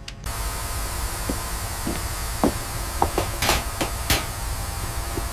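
Steady mechanical hum and hiss, with short taps and knocks scattered through it, about a dozen in all.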